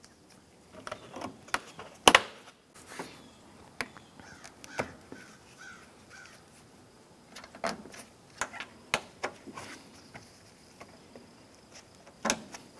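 Plastic push-pin retainers being pressed into a plastic radiator cover: scattered sharp clicks and snaps, the loudest about two seconds in, with a few faint squeaks of plastic in between.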